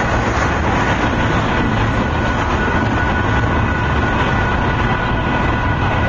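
Double-stack container freight train rolling past close by: the steady rumble and rattle of its well cars' wheels running over the rails, with a faint steady high ringing tone over it.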